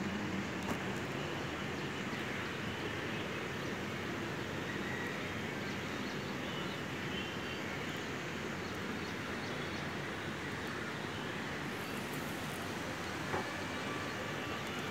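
Steady, even hum of distant city traffic, with a few faint short high tones over it.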